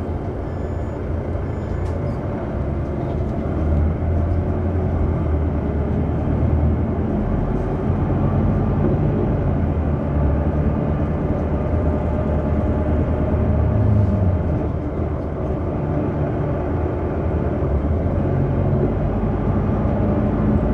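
BCI Proma minibus running along the road, heard from inside the passenger cabin: a continuous engine drone mixed with road noise, the engine note rising and falling as the bus speeds up and slows.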